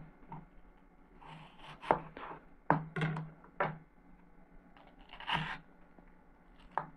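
Small metal heart-shaped cookie cutter pressed through watermelon slices onto a plastic cutting board, with pieces handled and set down: a few short, faint taps and knocks, and one longer, noisier scrape about five seconds in.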